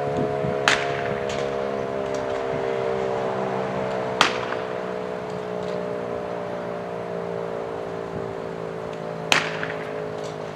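Model 5 electromechanical fire siren winding down after its test: a steady chord of tones slowly falling in pitch and fading. Three sharp clicks stand out over it, about a second in, near the middle and near the end.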